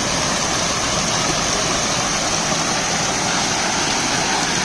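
Steady rush of running water, an even noise with no breaks.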